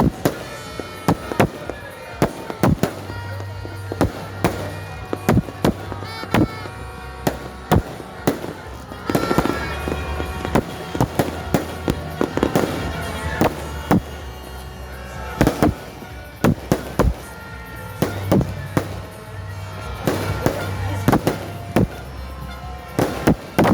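Aerial fireworks bursting over and over: many sharp bangs, some in quick rattling clusters, with music and voices in the background.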